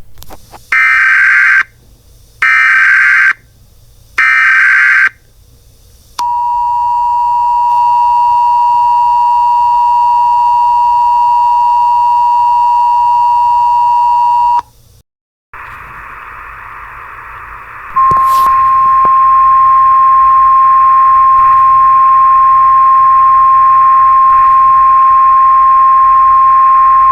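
Emergency Alert System tornado warning tones: three short bursts of SAME header data, then the two-tone attention signal held steady for about eight seconds. After a brief break comes a hiss of radio static, and a single steady alert tone joins it a few seconds later.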